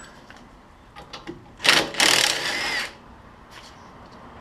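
Power drill running, a short burst and then about a second of steady running, spinning off a bolt that holds the wheel hub assembly.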